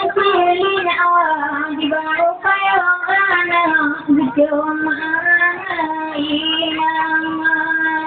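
A high female voice singing a slow, drawn-out melody without accompaniment, with long held notes that bend and ornament in pitch.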